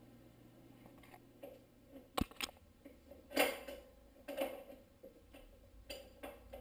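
Light clicks and soft rustling knocks from hands handling a dirt bike air filter and its housing on a paper towel. There is a sharp click about two seconds in, and the loudest knock comes a second later.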